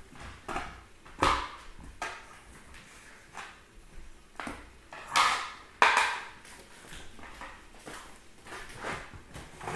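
Small plastic toys and a paper booklet being picked up and set down on a hard tabletop: scattered knocks, clatters and rustles, the loudest about a second in and twice around five to six seconds in.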